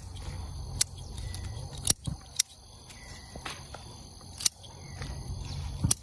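Scissors snipping through choy sum stalks: about five sharp snips spread out, with insects trilling steadily in the background.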